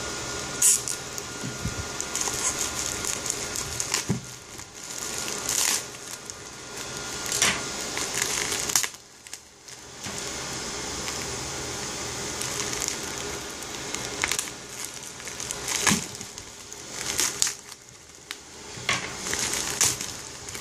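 Bubble wrap being torn open and pulled off a wrapped router: plastic crinkling and crackling, with sharp snaps now and then and a short lull about nine seconds in.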